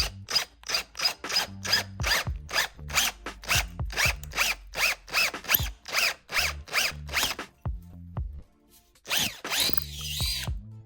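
Power drill boring into a motorcycle's upper triple clamp in short, rapid, repeated bursts, then one longer run near the end with a whine from the bit. The hole is being enlarged for handlebar risers by stepping up bit sizes.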